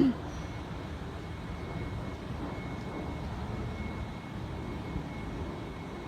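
Steady low rumble of background noise, with a faint steady high-pitched tone above it.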